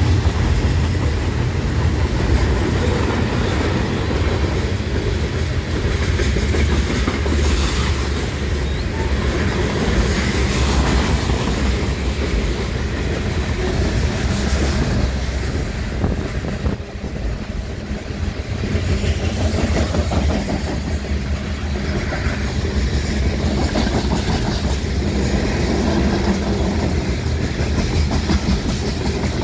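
Diesel freight train passing close by. A BNSF Warbonnet locomotive goes by at the start, then covered hopper cars roll past in a steady, loud rumble of wheels on the rails.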